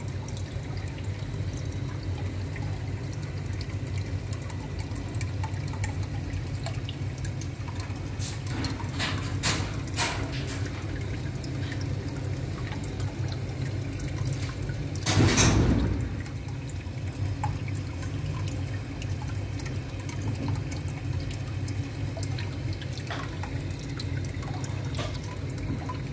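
Aquarium filter running: water trickling and dripping into the tank over a steady low hum. A few sharp clicks come about a third of the way in, and a brief louder burst of noise a little past halfway.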